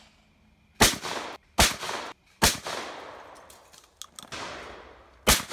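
Shotgun shots at clay targets: two close together about a second in, a third about two and a half seconds in, and a fourth near the end, each followed by a long fading echo.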